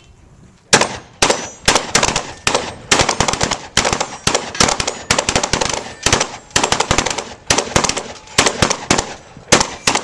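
Rapid shotgun fire: a long string of shots, about two to three a second, starting just under a second in, each shot trailing off briefly.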